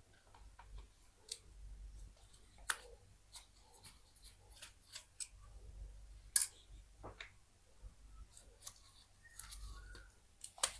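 Small, sharp clicks and taps of a mobile phone's plastic and metal parts being handled and pried apart during a teardown, irregularly spaced, with one louder snap about six seconds in.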